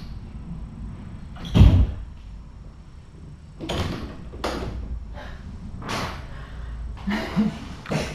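A loud thud about one and a half seconds in, then several softer knocks and rustles.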